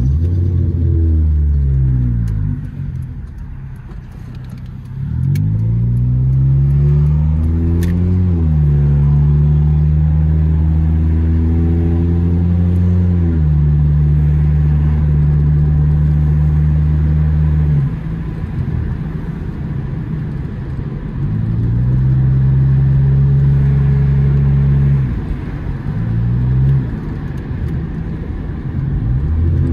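Turbocharged Nissan Sentra SE-R four-cylinder engine with a cat-back exhaust, heard from inside the cabin while driving. The engine note falls early on, climbs under acceleration, then steps down in pitch with each upshift and holds steady at cruise; it quietens as the throttle is lifted near the middle, then pulls up in pitch again and drops off near the end.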